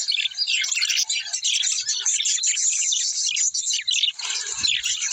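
A flock of small birds chattering, with many short chirps and twitters overlapping without a break.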